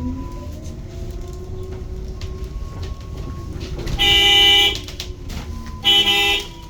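Electric bus drive motor whining as the bus gets under way, its pitch rising then holding steady. Then a horn sounds two blasts of about half a second each, about four and six seconds in.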